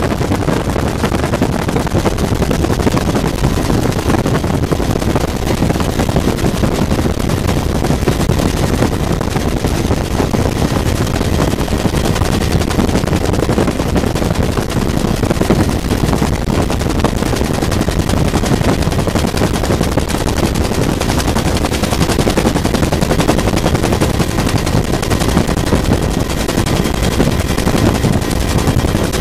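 Bell UH-1 Huey helicopter in flight, heard from inside the cabin: loud, steady rotor and turbine noise with a fast, even chop from the main rotor blades.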